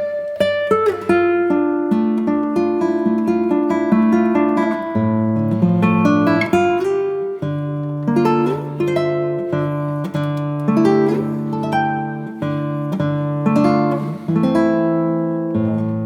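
Instrumental background music led by plucked acoustic guitar, a steady run of picked notes.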